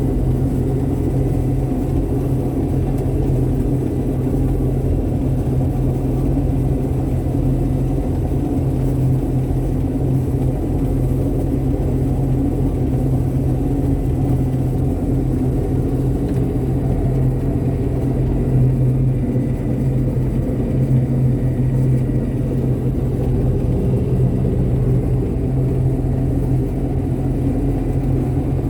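Harvest machinery's engine running steadily with a deep, even rumble.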